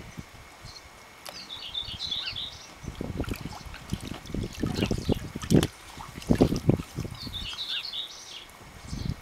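Water sloshing and splashing in a shallow inflatable paddling pool as a dog wades and another noses in the water, in irregular bursts, loudest in the middle. Birds chirp twice in the background.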